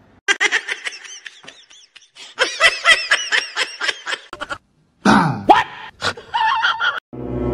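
A person laughing in quick giggling bursts: a few short ones at first, then a longer run of rapid giggles from about two seconds in.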